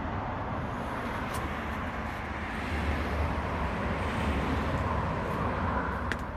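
Steady outdoor wind noise with a low, gusting rumble on the microphone, rising a little in the middle. A few faint clicks sound over it, one about a second in and one near the end.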